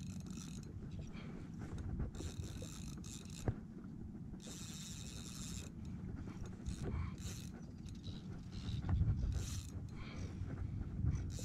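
Fishing reel whirring and clicking in short bursts, about five times, as a large fish on the line works against it. A steady low rumble runs underneath.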